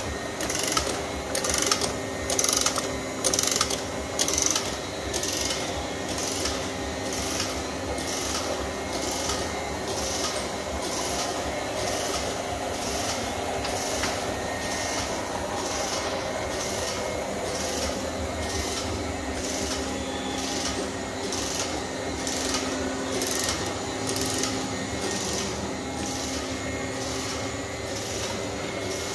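Hikari label printing machine running, with a steady motor hum under an even, repeating clatter a little under twice a second as the label web runs through it.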